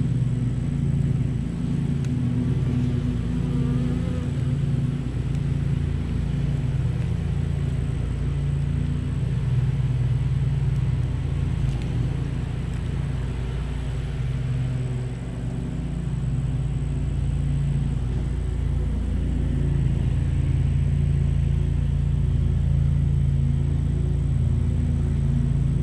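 Honeybees buzzing around an open hive during a frame inspection: a steady, dense low hum with no breaks.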